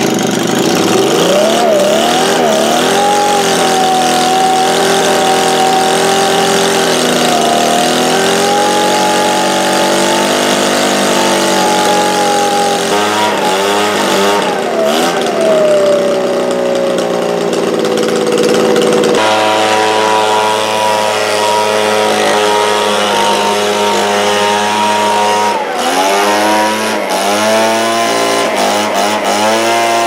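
Echo leaf blower's small two-stroke engine running, its throttle opened and closed several times so the pitch rises and falls. It seems a little lacking in power, which the owner puts down to gunk left in the cylinder after the fuel gelled and the carburetor was cleaned.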